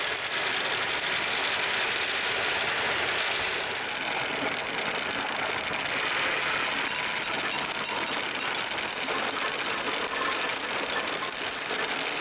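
Many glass marbles rolling and clattering through a wooden marble run, knocking against one another and the metal pins in a dense, steady rattle of clicks.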